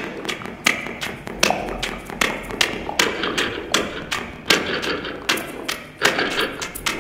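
Amplified sewing machines played as instruments: a rhythmic run of sharp mechanical thumps and taps, about one to two a second, over a noisy mid-range wash.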